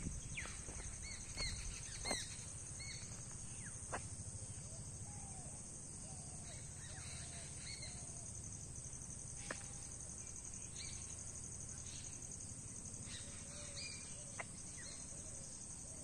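Quiet outdoor ambience: a steady high-pitched insect drone, with scattered short bird chirps and a few faint sharp clicks.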